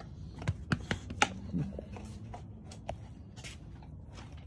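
A dog playing with a knotted rope toy: scattered sharp clicks and taps, the loudest about one second in, with a short low vocal sound about one and a half seconds in.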